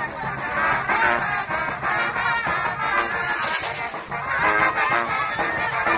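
Brass music playing, with trumpets and trombones.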